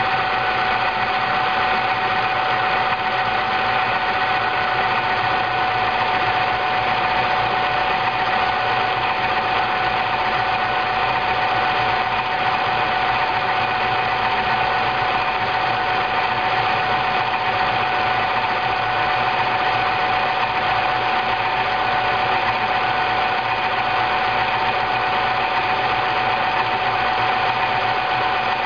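Froth Au Lait automatic milk frother running, its motor spinning the whisk to froth the milk in the jug: a steady motor hum with a constant whine.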